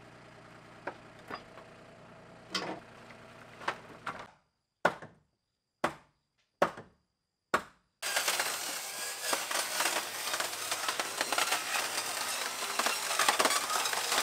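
Scattered sharp knocks and clatters of scrap lumber and metal siding being thrown onto a debris pile. About eight seconds in, a dense continuous noise of a saw cutting into wall framing takes over.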